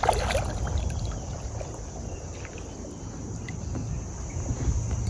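Kayak paddle dipping and pulling through calm water, with short splashes and drips, the strongest right at the start, over a steady low rumble.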